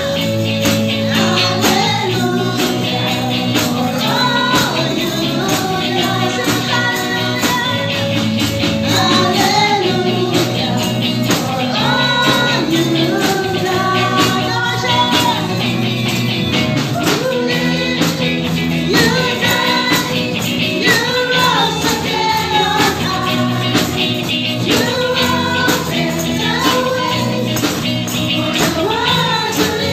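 Live praise-and-worship song: a group of women singing together over a live band with electric guitar, with tambourines shaken along to the beat.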